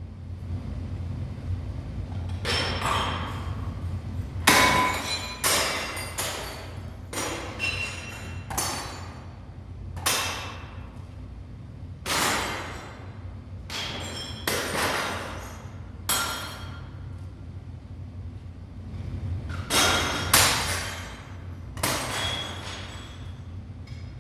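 A string of about a dozen irregular crashes of hard objects being struck, each with a short ringing tail, over a steady low hum.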